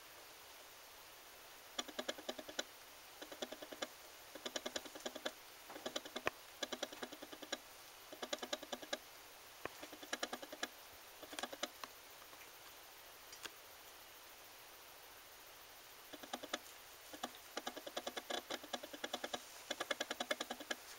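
Rapid mechanical ticking from a camcorder's zoom and focus lens motor, in short runs with pauses, starting about two seconds in.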